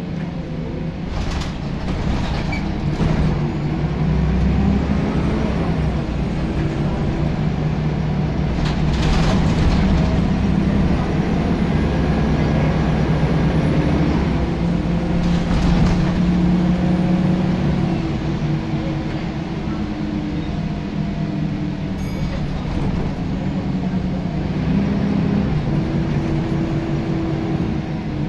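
Scania L94UB bus's diesel engine working hard under load, heard from the back seat inside the cabin. Its note climbs and drops as the bus accelerates and changes gear, with a few brief rushes of noise.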